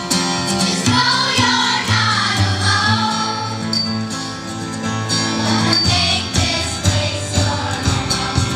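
A choir singing over instrumental accompaniment with a moving bass line.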